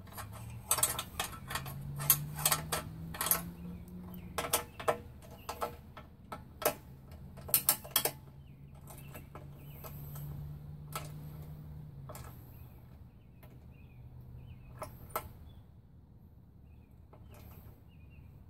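Small wrench clicking and clinking on bolts by a pedal tractor's drive chain, a quick irregular run of sharp metal clicks over the first eight seconds, then only a few scattered ones. A low steady hum runs underneath and fades out past the middle.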